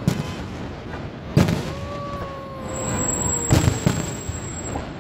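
Aerial fireworks shells bursting with sharp booms: one just after the start, a loud one about a second and a half in, and a quick cluster of bangs around three and a half seconds in.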